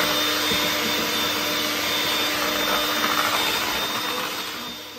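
Electric hand mixer running steadily, its beaters whirring through a thin spinach, egg and milk cake batter in a plastic bowl. The sound dies away near the end as the mixer stops.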